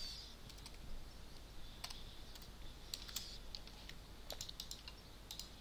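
Faint, scattered keystrokes on a computer keyboard.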